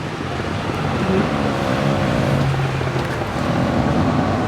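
Electric seat motor of a retrofitted power seat whining as it tilts the seat, over a steady hum.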